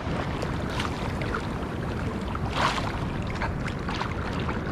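Sea waves washing against the shore in a rough, choppy sea, a steady rushing wash with one louder surge about two and a half seconds in.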